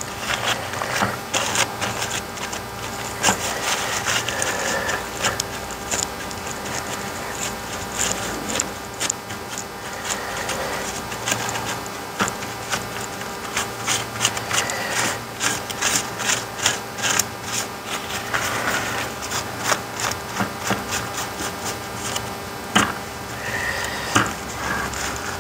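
Paper towel wet with 99% isopropyl alcohol rubbed and scrubbed over a circuit board, a long run of short scratchy strokes, wiping away diluted soldering flux after reflowing the joints.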